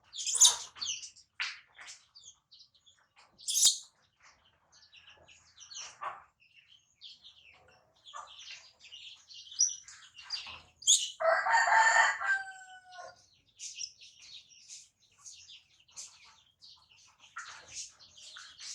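Birds chirping in short high calls throughout, with one louder, longer call, like a rooster crowing, about eleven seconds in.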